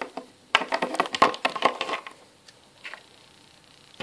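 A small plastic toy figure tapped rapidly against a wooden tabletop, making a quick run of light clicks for about a second and a half, then one faint knock.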